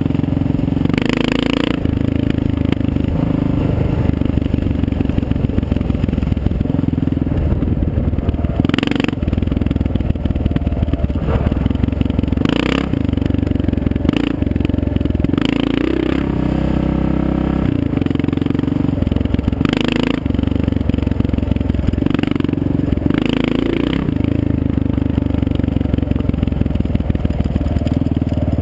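Motorcycle engine running steadily under way on a gravel road, with tyre noise on the loose surface and wind on the microphone; a few brief louder rushes of noise come and go.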